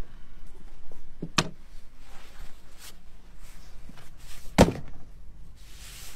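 Hard knocks and clunks of stacked artillery rounds being handled and shifted in a vehicle's cargo bed: two close knocks about a second and a half in, a faint one near three seconds, and the loudest single clunk about four and a half seconds in.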